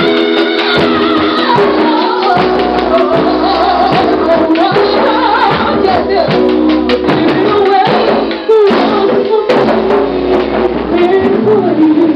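A woman singing into a microphone over loud backing music with a steady beat.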